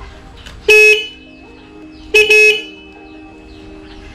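The Bajaj Dominar 400's original electric horn being sounded in two short, loud blasts about a second and a half apart. The second blast is broken into a quick double toot.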